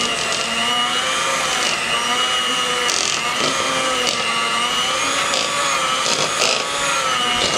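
Electric hand mixer running steadily, its beaters whipping a thick cream cheese and powdered sugar filling in a bowl. The motor whine wavers slightly in pitch as the load on the beaters changes.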